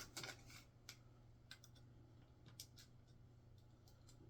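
Small plastic Lego pieces clicking as they are handled and pressed together: a quick cluster of clicks at the start, then scattered single clicks. A faint low hum runs under them.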